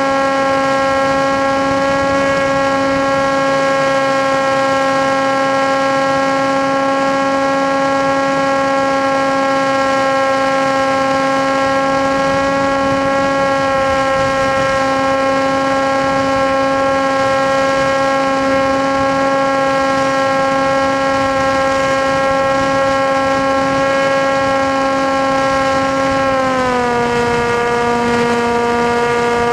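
Motor and propeller of an FPV aircraft whining at a steady pitch at constant throttle. The pitch steps down about three seconds before the end as the throttle is eased back.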